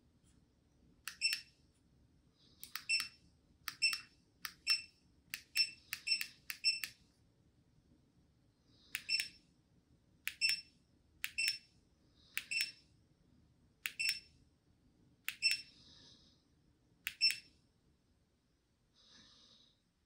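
Short electronic beeps from the Home Decorators Collection Carley smart ceiling fan, one for each button pressed on its remote: about fifteen, a quick run early on and then about one a second. A faint steady hum lies underneath.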